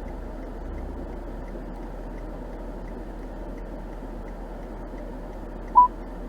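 Car cabin noise while driving: a steady low rumble with faint regular ticking about twice a second. A short, sharp electronic beep sounds near the end and is the loudest thing.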